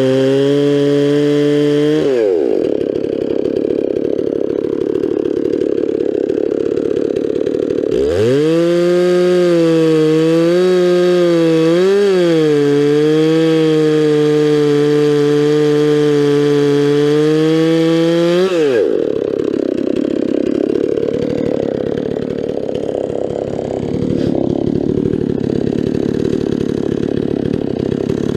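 Stihl 046 Magnum two-stroke chainsaw with a 24-inch bar and milling chain, ripping a log on an Alaskan mill. It runs at full throttle, drops to a low idle about 2 s in, then opens back up to full throttle about 8 s in, its pitch dipping and recovering slightly under the load of the cut. Near 19 s the throttle is released and it falls back to idle.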